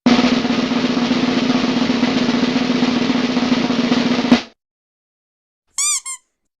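Snare drum roll lasting about four seconds, ending in a single sharp hit. After a pause come two quick pitched blips that rise and fall.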